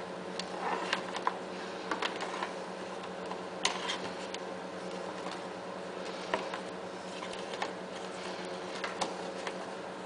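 Scattered light clicks and taps of plastic and wiring being handled as a 12-volt power socket is fitted into a hole in a mower's plastic console, over a steady low hum.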